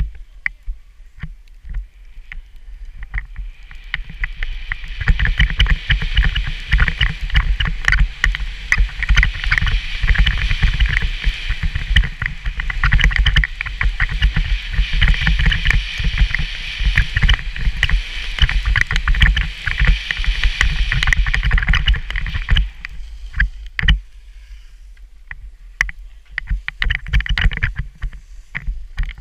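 Alpine skis running fast over groomed snow: a continuous scraping hiss of the edges and bases, with wind buffeting the mounted camera's microphone. It builds over the first few seconds and drops away about three-quarters of the way through as the run slows.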